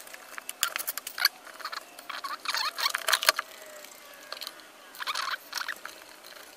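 Hands handling wires and parts inside a plastic electrical enclosure: irregular small clicks, scrapes and rustles of cable and plastic.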